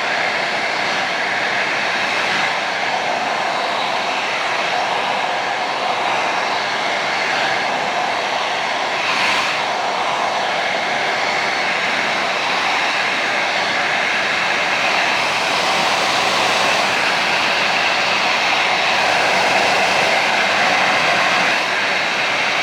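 Handheld hair dryer running steadily, a continuous rush of blown air with a faint whine from its motor.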